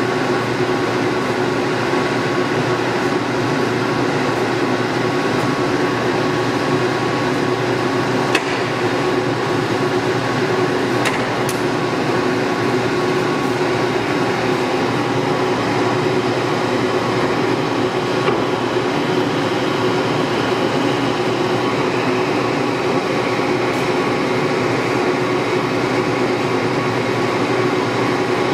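Warner & Swasey No. 4A square-head turret lathe running under power in a low speed range: a steady hum with a constant whine. A few light clicks sound about eight and eleven seconds in.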